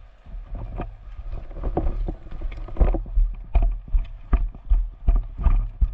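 Footsteps of a person moving on foot with gear worn on the body, a regular thud about two to three times a second with rattling kit, the steps heavier and louder from about halfway through.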